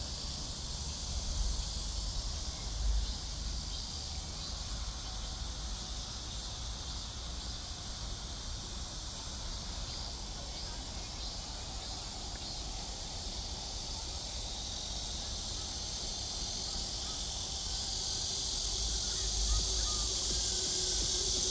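Steady chorus of insects, a continuous high hiss, with a low rumble underneath that swells near the end.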